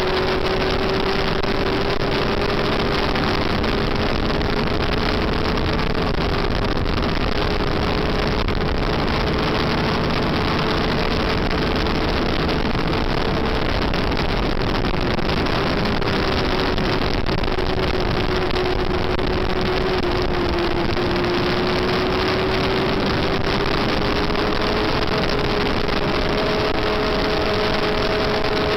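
Onboard sound of a racing Yamaha FZR400's inline-four engine held at high revs, its pitch steady but dipping briefly around halfway and again about two-thirds through before climbing back, over constant wind rush at race speed.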